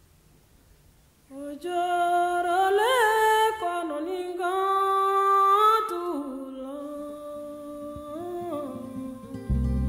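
Soundtrack music: a wordless vocal line holding long notes with slides between them. It enters about a second in, after a near-quiet start. A low accompaniment comes back in near the end.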